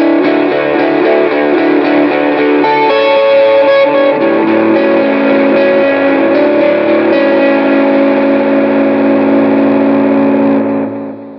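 Fender Jazzmaster electric guitar played through a Fairfield Circuitry Accountant compressor into a Boss SD-1W Super OverDrive, with an Electro-Harmonix Superego+ delay added, into a Fender Princeton Reverb amp. A run of compressed, overdriven picked notes gives way about four seconds in to a held chord that rings and fades out near the end.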